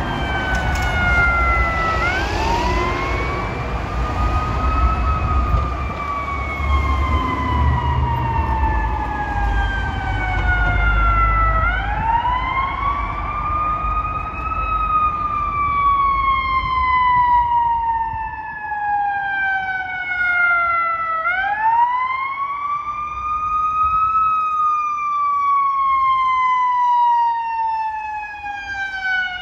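Fire department battalion chief's SUV siren wailing. Each cycle rises quickly over a couple of seconds, then falls slowly, repeating about every nine to ten seconds. A low rumble underlies the first dozen seconds.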